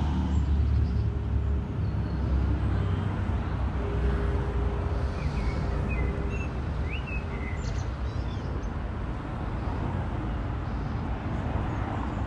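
Steady city street traffic rumble, easing off at the start after a vehicle has just passed. A faint steady engine hum runs through the first half or more, with a few faint high chirps around the middle.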